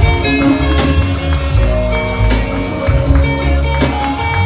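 Loud party music with a heavy bass line and a steady percussion beat.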